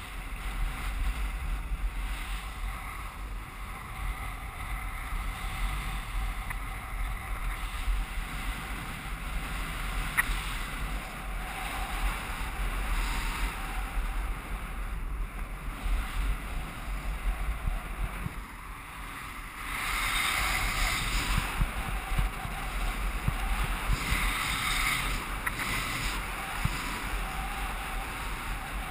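Wind rushing over a camera microphone while skiing downhill, with the hiss of skis sliding over packed, groomed snow. The hiss swells louder twice in the last third, as the skis turn.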